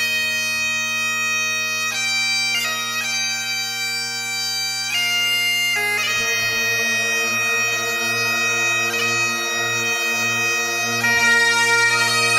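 Bagpipes playing a slow melody over steady drones, the chanter's notes held a second or more each.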